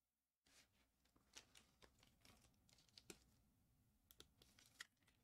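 Faint rustling and small clicks of trading cards and plastic card cases being handled, with a sharper click about three seconds in.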